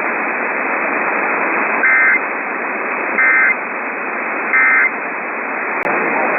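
Emergency Alert System end-of-message signal: three short bursts of SAME digital data tones, evenly spaced about 1.3 seconds apart, over steady radio static. They mark the end of the severe thunderstorm warning. A single sharp click comes near the end.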